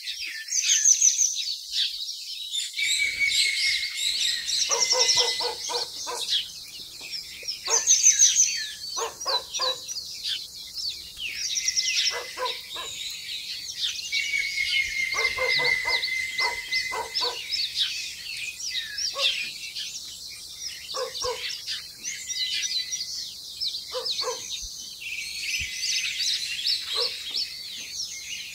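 A chorus of birds chirping and twittering high-pitched throughout. From a few seconds in, a lower, harsher call sounds in short rapid series, repeated every second or two.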